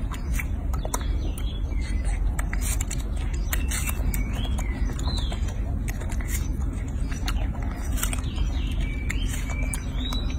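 Baby macaque biting and chewing watermelon, with short wet crunching clicks scattered through, over a steady low rumble. Birds chirp in the background several times, short rising-and-falling calls.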